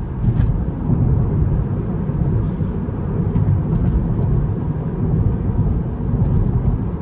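Steady road and tyre noise inside an electric Tesla's cabin at highway speed: an even low rumble with no engine note.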